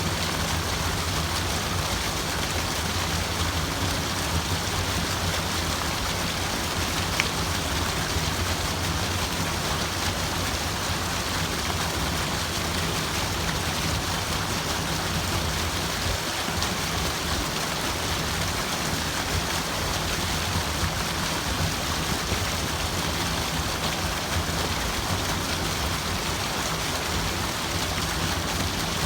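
Steady running water, an even splashing hiss without a break.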